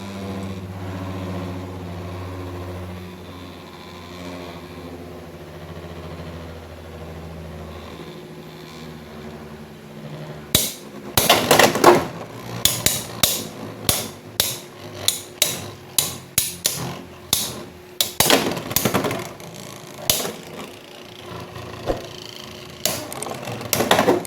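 Beyblade X spinning tops whirring in a plastic battle stadium, a steady hum that fades over the first eight seconds or so. Then, from about ten seconds in, a run of sharp plastic-and-metal clacks, roughly one or two a second, as the tops strike each other and the stadium walls.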